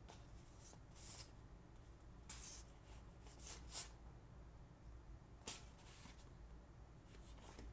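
Faint soft swishes of stiff card player sheets sliding and rubbing against each other as they are shuffled through by hand, about seven brief strokes, the loudest a little under four seconds in.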